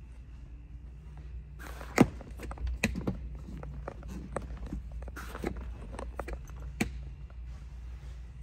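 Scattered knocks and clicks with brief rustling, the sharpest knock about two seconds in, over a steady low hum.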